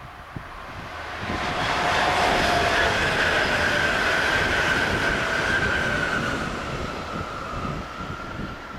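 DSB intercity multiple-unit train passing at speed. It swells in over the first two seconds, is loudest for a few seconds, then fades, with a whining tone that sinks slightly in pitch as it goes by.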